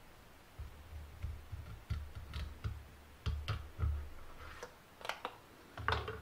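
Irregular light clicks and soft knocks of a thin-bladed knife cutting a small piece of wood veneer held in the hand, with louder knocks near the end as it is handled.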